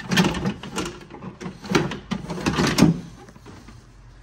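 Knocks and rattles of a window regulator assembly being maneuvered and fitted into a car door's metal shell, a run of clunks over about three seconds that then dies down.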